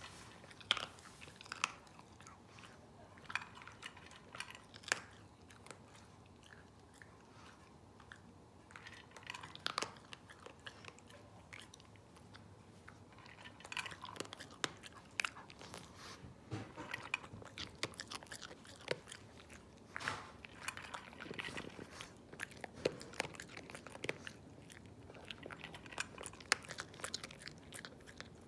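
Pekingese dog crunching dry kibble, chewing in irregular runs of sharp crunches with a short lull early on and more frequent crunching through the second half.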